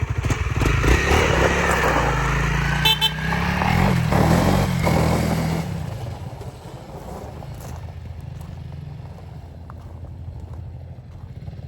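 Honda CRF300L's single-cylinder engine revving as the bike pulls away, fading after about six seconds, with a brief high beep about three seconds in.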